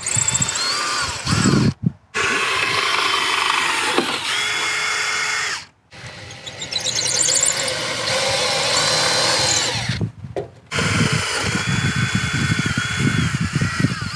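DeWalt cordless drill drilling mounting holes through a mower's metal plate, in four runs with brief stops between them. The motor's whine steps up and down in pitch as the bit cuts.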